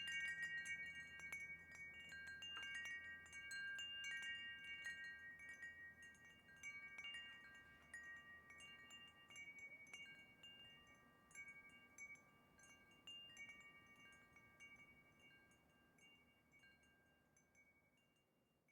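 Wind chime ringing, its tubes struck again and again in several overlapping pitches, the ringing gradually fading away until it is nearly gone near the end.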